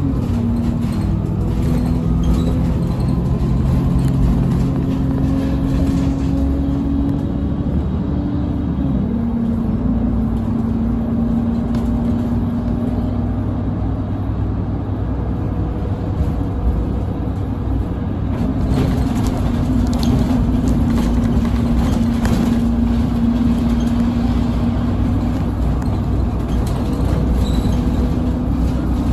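City bus driving along the road, heard from inside the cabin: a steady drivetrain hum over low road rumble. The hum drops in pitch about nine seconds in and strengthens again later on.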